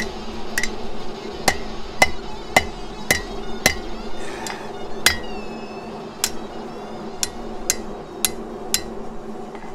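Hand hammer striking a steel bar on the anvil face of a bench vise: repeated blows about two a second, with a short pause in the middle and one blow ringing out, as the bar's end is forged into a hook.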